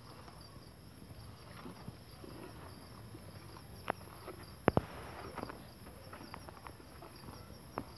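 Crickets chirring steadily in a high, pulsing drone, with a few sharp knocks about four to five seconds in, the loudest near five seconds.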